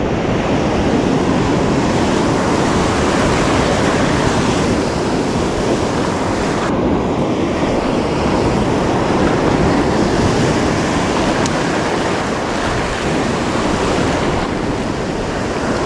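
Ocean surf breaking and washing up a sandy beach, a loud steady rush, with wind buffeting the microphone.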